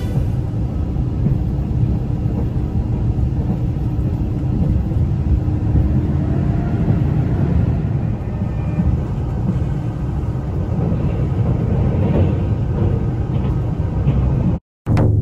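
Running noise of a JR Shikoku 2700 series diesel railcar heard from on board: a steady low rumble of engine and wheels on rail. It cuts out abruptly for a moment near the end.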